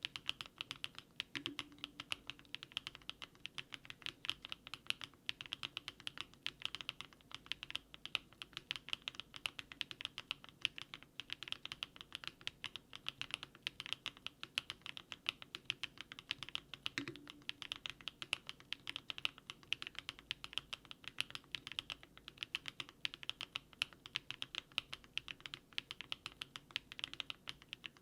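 Continuous fast typing on a DARING RUN DR-70F mechanical keyboard fitted with HMX 80Retros Film JOKER switches. It is a steady stream of crisp keystroke clacks.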